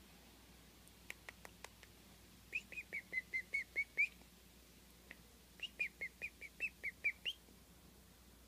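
Baby chickadee calling: two quick runs of short, high squeaky chirps, about six a second, with a few faint clicks before the first run.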